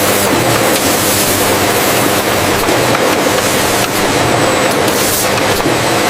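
Steady, loud machine noise: an even hiss with a low hum that holds unchanged throughout.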